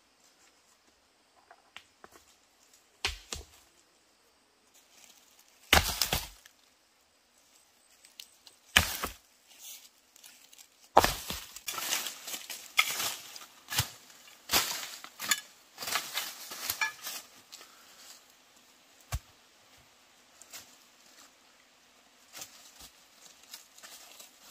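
Handwork among dry bamboo litter: sharp knocks of a hand tool striking wood and ground, with dry leaves and sticks crackling. A few separate knocks come first, then a dense run of crackling and knocks lasting several seconds, then only the odd click near the end.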